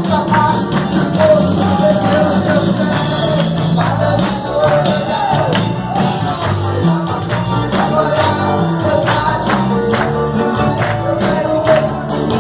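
Live worship band playing gospel music, with a sung melody over bass and percussion keeping a steady beat.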